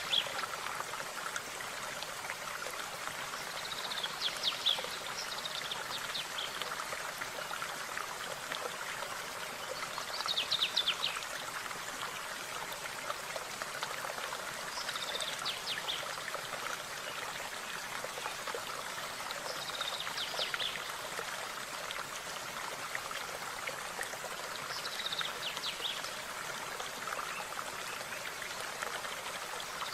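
A small stream running steadily, with a songbird repeating a short, high, chirping phrase about every five seconds.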